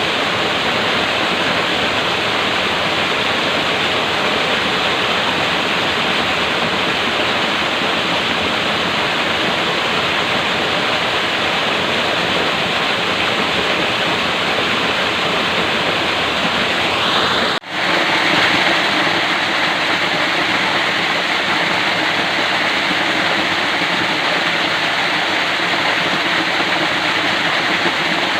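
Steady rush of flowing water. About two-thirds of the way through there is a momentary dropout, and then the water sound carries on with a slightly different texture, as at a cut between two recordings.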